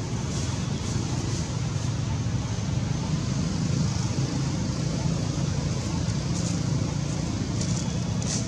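Steady low rumble and hiss of outdoor background noise, with a few faint brief high ticks in the second half.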